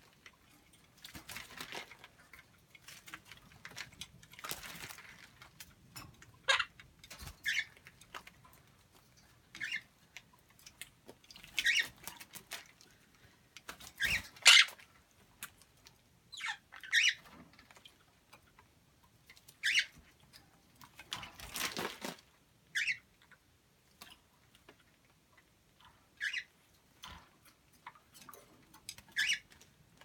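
A quaker parrot and a green-cheeked conure bathing in a bowl of water, with intermittent splashing and wing-flapping flurries and short high squeaks every second or two.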